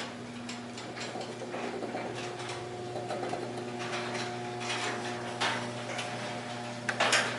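Electric garage door opener running with a steady motor hum while the door rattles and scrapes along its tracks as it goes up.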